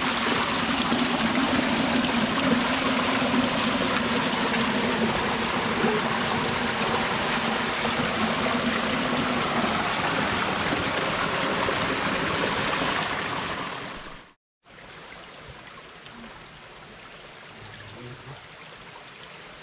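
Waterfall water rushing, a steady, even sound that fades out about fourteen seconds in. After a brief gap there is a much quieter flow of water.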